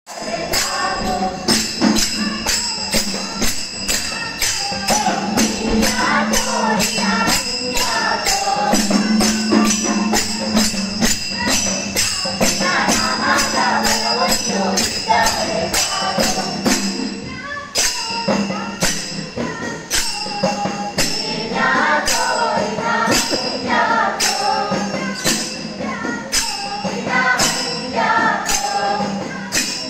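Kunitha bhajane: a group singing a devotional bhajan together while small hand cymbals (talas) clash steadily on the beat, about three strokes a second, over a steady low drone.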